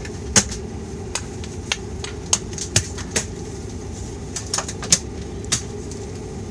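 Dash 8-Q400's Pratt & Whitney PW150A turboprop engine running on the ground, heard from inside the cabin as a steady low drone. Irregular sharp clicks and taps sound over it, about a dozen in a few seconds.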